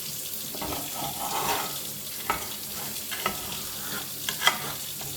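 Metal fish slice scraping butter and fat off a cast-iron frying pan, a run of irregular scrapes with a few sharp clicks of metal on metal, the loudest about four and a half seconds in.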